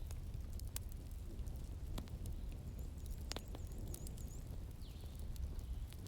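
Wood fire in a fireplace crackling, with sharp pops about a second in, at two seconds and a few seconds in, over a steady low rumble.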